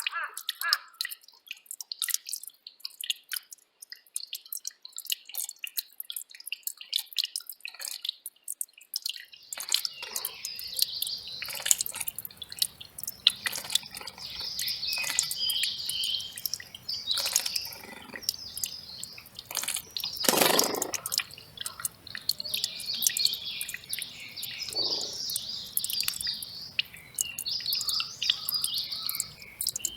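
Mountain stream water dripping and plinking in quick irregular drops for the first several seconds. About nine seconds in, a steady rush of running water starts, with small birds chirping and twittering over it, and a brief louder whoosh a little past the middle.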